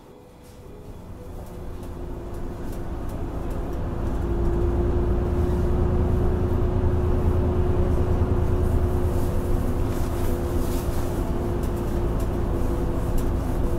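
A vehicle running, heard as a steady low rumble with a steady hum that builds over the first few seconds.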